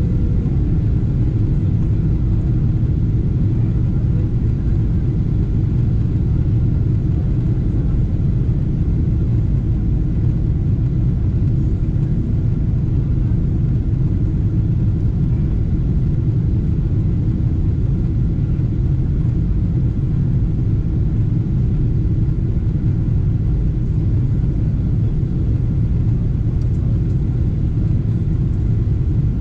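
Steady rumble inside the cabin of a Boeing 777-200ER airliner: engine and airflow noise heard from a passenger seat, with a faint steady whine above it.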